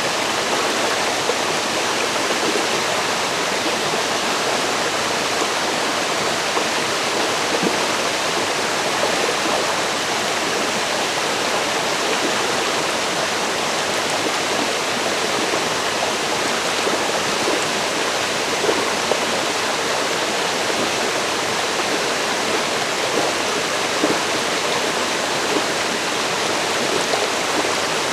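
Forest river flowing: a steady rush of water over rocks, with small splashes and gurgles.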